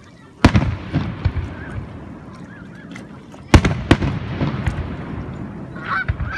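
Aerial firework shells bursting. Two loud booms, about half a second in and about three and a half seconds in, the second followed closely by a smaller bang, each dying away in a rolling echo.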